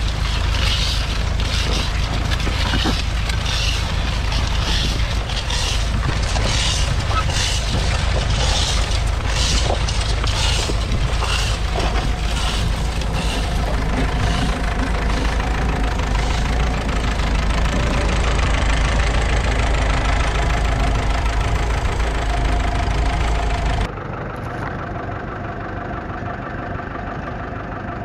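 1953 Ferguson TEF20's 2.1-litre four-cylinder diesel engine running steadily under load while pulling a mounted plough, with a repeated hissing about twice a second during the first half. About 24 s in the sound cuts to a quieter, duller recording of the same work.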